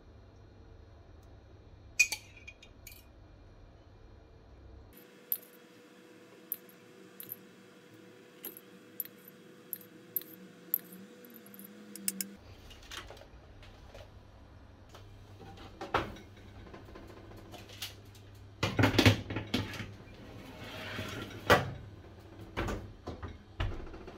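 Kitchen handling sounds as egg wash is brushed onto bread rolls on a metal baking tray: a pastry brush clinking against a small metal cup and tapping on the tray, in scattered sharp clicks. A longer, louder clatter comes about two-thirds of the way in.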